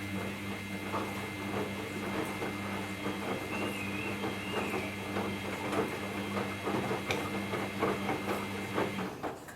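Samsung front-load washing machine tumbling its drum: a steady motor hum with clothes and water sloshing and knocking inside. The drum motor stops about nine seconds in.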